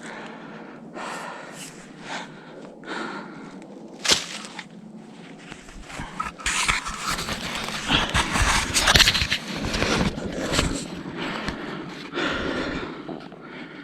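Footsteps crunching and rustling through dry leaf litter and brush, heaviest in the middle stretch, with one sharp crack about four seconds in.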